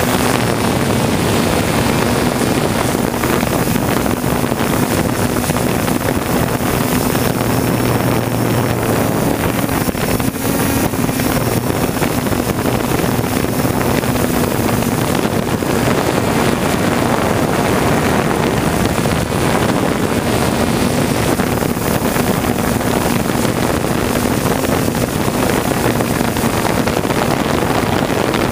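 3DR Solo quadcopter's electric motors and propellers whirring steadily in flight, heard from the camera mounted on the drone itself: a steady low hum over a wash of rotor and wind noise.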